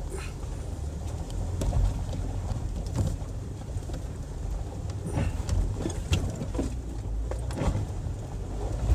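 Land Rover LR4 crawling over loose slate rocks, heard from inside the cabin: a steady low engine rumble with scattered knocks and clunks as the tyres and suspension work over the rocks.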